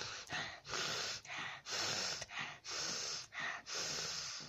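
A person breathing hard in quick, noisy gasps, about two breaths a second, alternating longer and shorter rushes of air.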